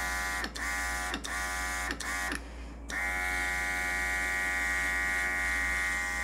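NEOECO cordless mini airbrush compressor running with a high electric whine and air hissing through the airbrush as it sprays paint. It starts and stops four times in quick succession, then runs steadily for about three and a half seconds.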